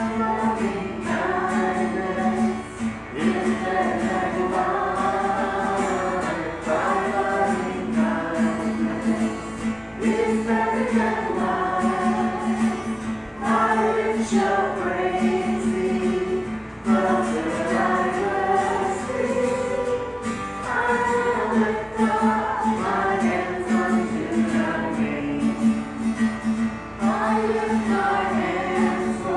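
Worship song: a group of voices singing together with instrumental accompaniment and a steady held low note underneath.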